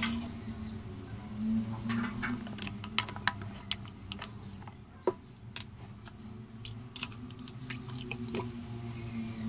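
Scattered clicks, taps and small splashes as a glass kerosene-lamp fount is handled in a plastic basin of water and dish soap is squeezed out of a plastic bottle, over a steady low hum.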